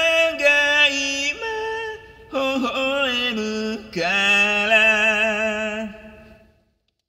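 Layered a cappella voices singing long held chords without words, the song's closing harmony. After a brief break about two seconds in, the chords shift, and the last chord is held and fades out to silence near the end.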